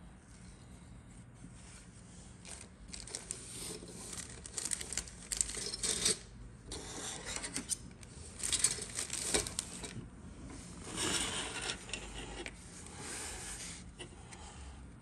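Plastic parts of a 1/48 scale model aircraft kit being handled: irregular bursts of clicking, rubbing and rustling of hard plastic, starting a couple of seconds in and easing off near the end.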